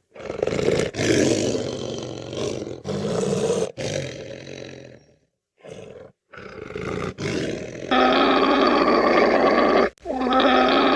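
Lion roaring in a series of rough, loud roars cut one after another. About eight seconds in, a different animal's long, steady, pitched call takes over.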